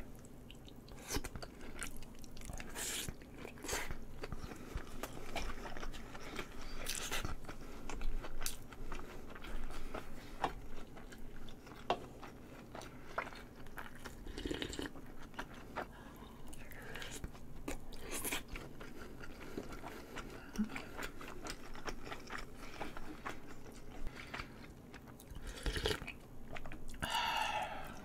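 Close-miked chewing of soy-marinated salmon and rice: wet mouth sounds with many short, irregular clicks and smacks.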